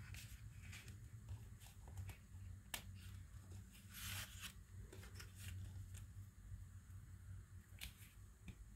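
Faint rustling and sliding of paper scraps handled on a table, with a few light ticks and a longer rustle about four seconds in, over a low steady hum.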